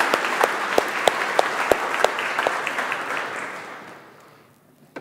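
Audience applauding, the clapping thinning and fading out about three to four seconds in.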